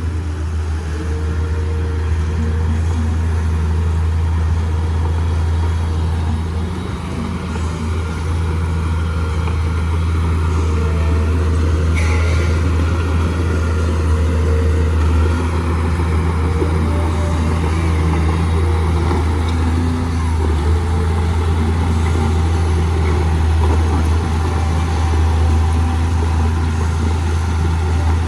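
Mitsubishi 315M bulldozer's diesel engine running steadily under work, with a brief dip about six seconds in and a single sharp click about twelve seconds in.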